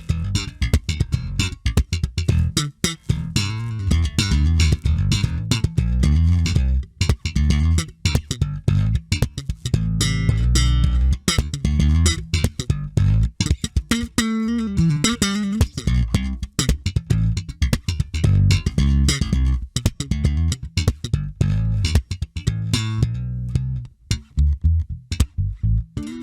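Electric bass guitar fitted with an active preamp circuit, played with fast, percussive plucked notes that carry a strong low end, with a pitch slide about halfway through.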